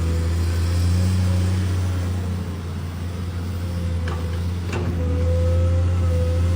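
Hitachi excavator's diesel engine running steadily as it digs a ditch, with two short knocks about four and five seconds in.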